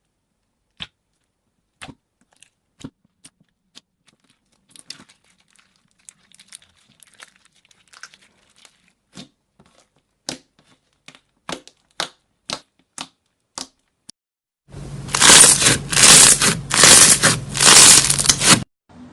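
Slime being handled: scattered sharp clicks and pops, then, near the end, about four seconds of loud crackling crunches in four or five swells that stop suddenly.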